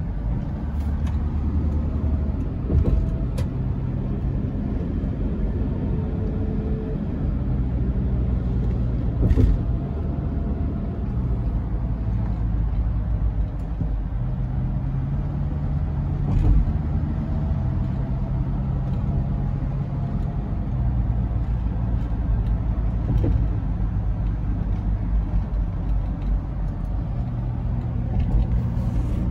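Car driving on an expressway: a steady low engine and tyre rumble, with a short knock every six or seven seconds.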